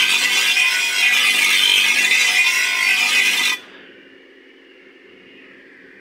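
Electric bench grinder's abrasive wheel grinding the steel edge of a chaff-cutter blade to sharpen it: a loud grinding hiss that cuts off suddenly about three and a half seconds in as the blade is lifted away, leaving the grinder motor's steady hum.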